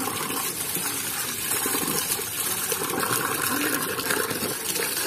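A steady jet of water from a standpipe tap gushing and splashing onto the ground and over cupped hands.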